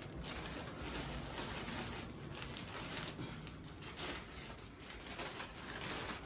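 Thin plastic garment bag crinkling and rustling irregularly as a jacket is pulled out of it.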